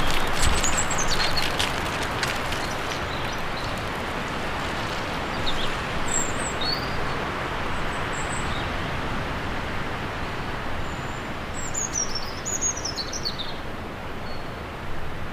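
Outdoor ambience: a steady hiss with a few small birds chirping around the middle and again near the end, and a run of light clicks and taps in the first two seconds.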